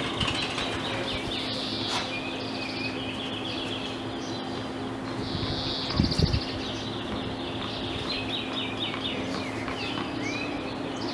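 Birds chirping and trilling again and again over a steady low hum, with a short cluster of low thumps about six seconds in.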